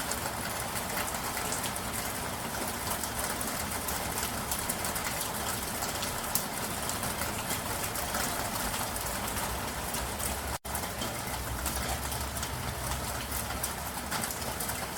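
Steady rain falling, an even hiss dotted with many distinct drop ticks. About ten and a half seconds in the sound cuts out for a split second, and after it a low rumble sits more strongly under the rain.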